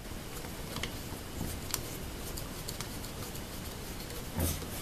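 Handling noise as a clear plastic dust-shoe plate is held and fitted up against a CNC router's spindle: a few light clicks and taps, then a soft knock near the end.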